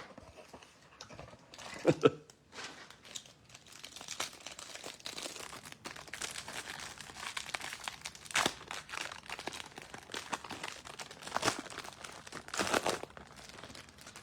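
Foil trading-card pack wrappers crinkling and tearing as packs are ripped open and the cards handled, with a few louder crackles.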